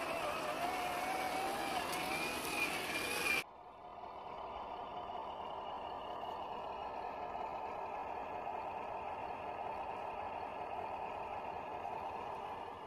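1/10-scale RC crawler's 550-size electric motor and drivetrain whining as the truck drives through sticky mud, the pitch wavering with the load. About three and a half seconds in, the sound cuts off abruptly to a quieter, steadier whine.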